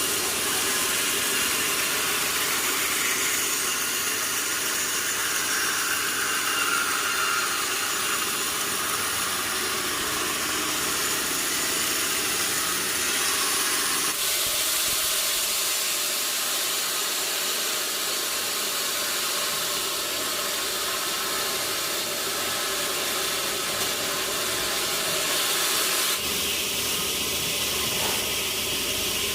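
Sawmill saw and machinery running, a loud, even, high-pitched rushing noise that changes abruptly about 14 and 26 seconds in.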